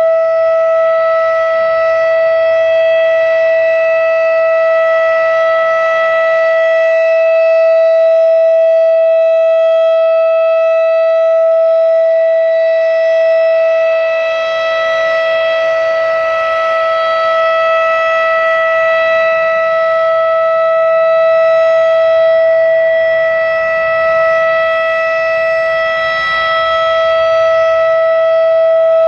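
Federal Signal RSH-10 Thunderbeam mechanical outdoor warning siren sounding a steady alert tone, holding one pitch. Its loudness swells and fades slowly as the horn rotates.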